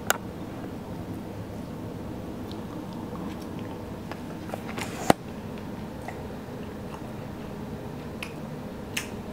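A fork clicks against a plate and sauce bowl a few times, sharpest about five seconds in. Quiet chewing of a crunchy mac and cheese waffle runs under a steady low room hum.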